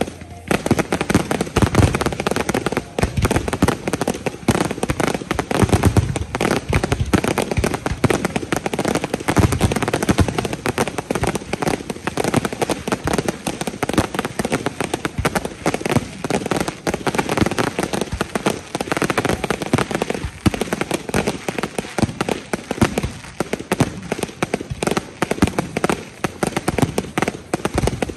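Finale barrage of aerial fireworks shells bursting overhead: a continuous, rapid run of bangs packed close together with no pause.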